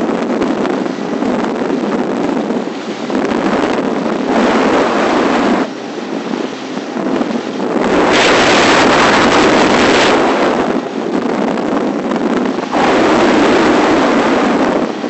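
Gusty wind buffeting the microphone on a small open boat on choppy water, rising and falling, with its strongest gust lasting about two seconds past the middle.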